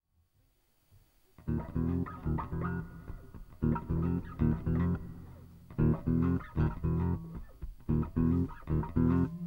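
Electric bass and electric guitar playing a tune's opening riff in short, clipped phrases broken by brief pauses, starting after about a second and a half of near silence.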